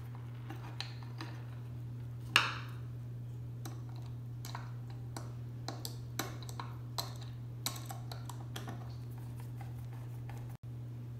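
Small clicks and taps of plastic parts and metal screws being handled as a plastic filter head is screwed down onto its bracket, with one louder clack about two seconds in. A steady low hum runs underneath.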